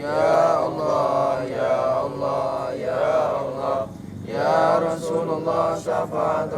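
A man chanting in long, drawn-out melodic phrases, like intoned prayer recitation, with a short break about four seconds in.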